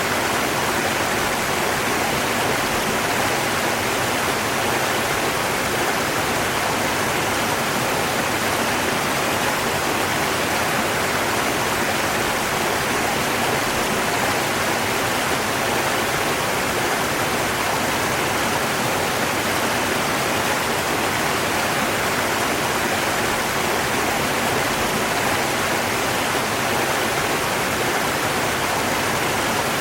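A river's rushing water, a steady even roar with no splashes or other distinct sounds.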